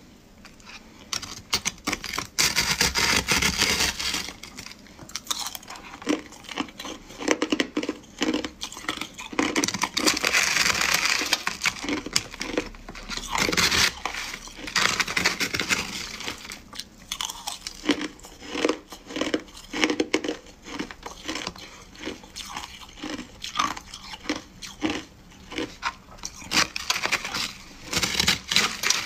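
Shaved ice crunching and crackling as a metal spoon digs, scrapes and stirs through it in a plastic tray. It comes in stretches that swell and ease.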